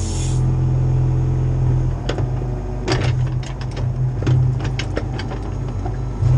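Cat 304 CR mini excavator's diesel engine running steadily under work. A short hiss at the very start, then a run of sharp metallic clanks and knocks through the middle.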